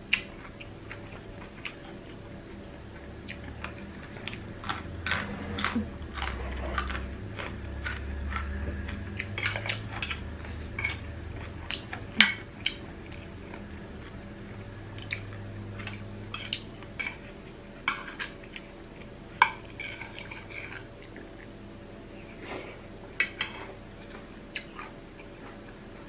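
Cutlery clinking and tapping against dishes during eating: scattered short, light clinks at irregular intervals, some sharper than others.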